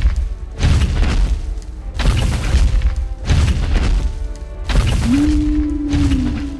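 A run of five heavy, booming crashes about a second and a half apart, with deep low end, from added sound effects over background music. A held low tone sounds near the end.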